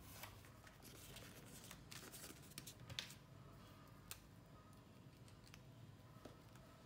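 Near silence with faint paper rustling and small clicks as a sticky note and pen are handled and the note is pressed onto a plastic jar lid, with one sharper click about three seconds in.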